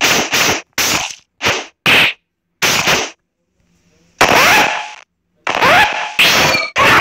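Animation combat sound effects: a quick run of about eight short, sharp stabbing hits in the first three seconds. A second later come longer, noisier hit sounds with a faint sliding tone in them.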